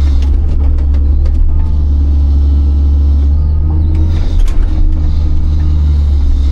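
Big excavator's diesel engine running with a steady low rumble. Scattered short clicks and knocks come in during the first couple of seconds and again about four seconds in.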